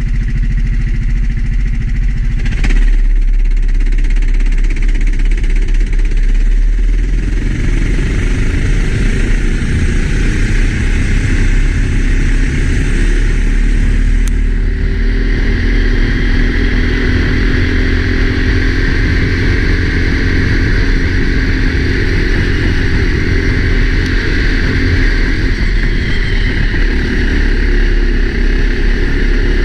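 A racing kart's four-stroke engine running hard under heavy wind rumble on the helmet microphone. There is a sharp click about three seconds in, and about halfway through the engine note settles into a steadier, higher pitch.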